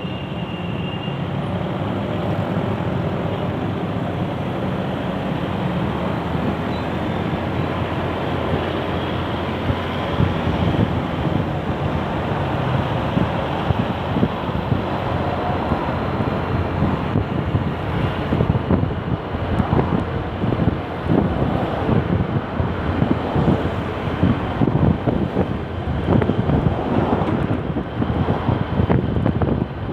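Strong wind buffeting the microphone over a steady rumble of road traffic. The buffeting turns choppier and gustier in the second half.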